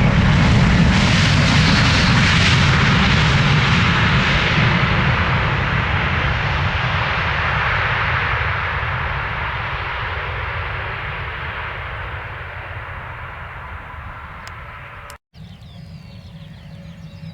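Aircraft engines passing close by, loud at first and fading steadily away over about fifteen seconds. After a sudden cut, birds chirp faintly over a low steady hum.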